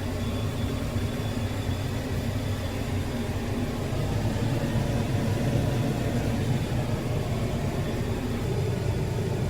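Combine harvester running steadily while cutting wheat, a low even drone of engine and threshing machinery heard from inside the cab.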